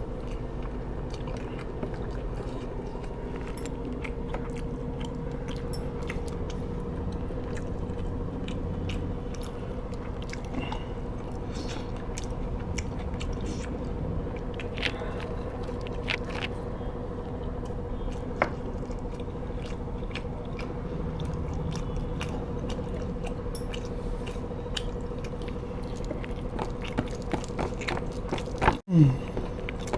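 A person chewing and biting food close to the microphone, with scattered short crisp clicks over a steady low hum. About a second before the end, a brief dropout and a louder knock.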